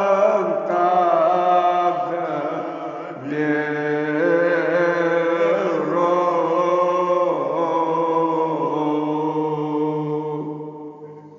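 A man's voice chanting a Kashmiri marsiya, a mourning elegy, in long held notes that step and waver up and down in pitch, dying away near the end.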